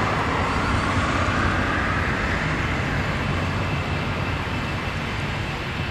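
Jet airliner engines running, a steady, loud roar that eases off slightly toward the end, typical of a Boeing 747 on the departure runway.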